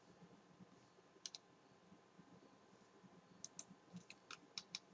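Near silence with faint clicking at a computer: a quick double click about a second in, then a run of irregular clicks in the last second and a half.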